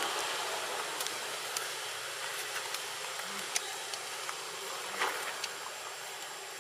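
Steady outdoor insect buzzing, with a high steady whine, and a dozen or so sharp clicks scattered through it.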